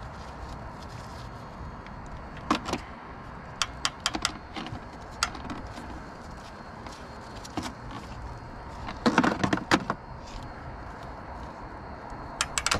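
Crimping tool clicking and rattling as it crimps a terminal onto a 12-gauge wire, in short scattered bursts with a denser run of clicks about nine seconds in.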